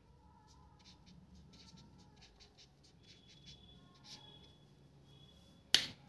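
Highlighter marker scratching and squeaking on paper in short strokes as ticks and a word are written, then one loud finger snap near the end.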